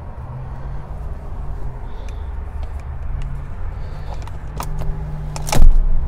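Low steady hum inside an SUV cabin, with a few light clicks and one loud thump near the end.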